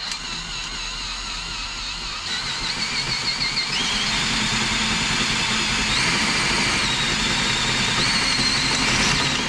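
Electric drill with an 18 mm bit boring into a bicycle frame tube: the motor runs steadily under load with a wavering high squeal from the bit cutting metal, stepping up in pitch a couple of times, then stops at the end.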